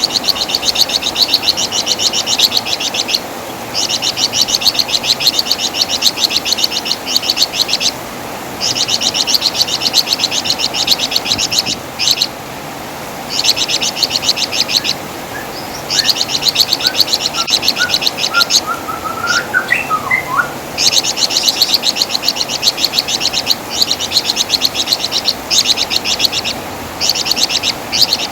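Flamboyan (wergan jawa) songbird giving its shrill chattering song: rapid high trills in bursts of one to four seconds, separated by short pauses. A fainter string of lower, rising notes comes near the middle.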